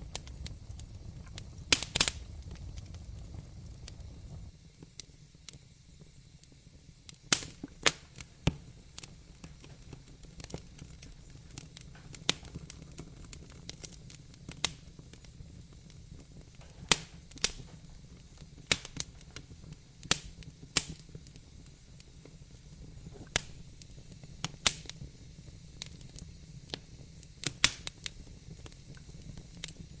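Wood fire crackling in a fireplace: irregular sharp pops and snaps, a few much louder than the rest, over a low steady hiss. A low rumble underneath drops away about four seconds in.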